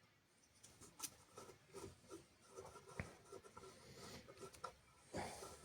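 Faint, scattered small clicks and scrapes of hand work on the lathe motor's metal cover and its screws as the cover is worked loose, with one sharper click about halfway through.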